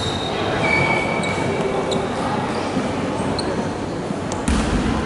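Reverberant basketball-gym noise: sneakers squeaking on the hardwood court over a steady hall hubbub, with one basketball bounce about four and a half seconds in.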